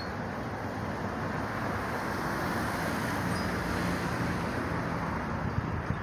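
Road traffic noise, a steady hiss that swells a little in the middle as a vehicle passes.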